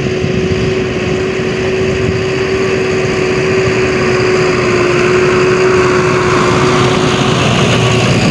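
Zetor Forterra 115 tractor's diesel engine running steadily under load while it tows a harrow-seeder across a meadow, with a constant held tone over a rough mechanical hum that grows a little louder as the tractor comes close.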